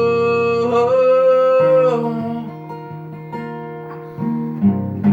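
Acoustic guitar accompanying a singer who holds a sung note until about two seconds in. The guitar then plays on alone, moving through chords.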